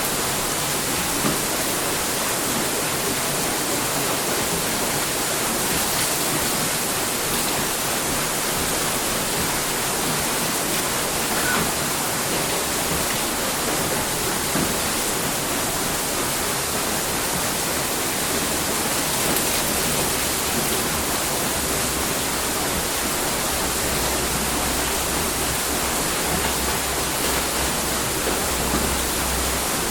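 Steady rush of water pouring at a water mill, an even hiss without breaks. A low rumble comes in underneath about two-thirds of the way through.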